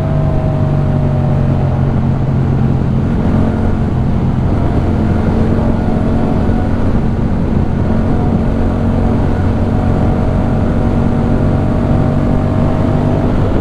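Yamaha MT-07's 689 cc parallel-twin engine breathing through a LeoVince One Evo full-system exhaust. It runs at a steady engine speed throughout, holding an even pitch under road riding.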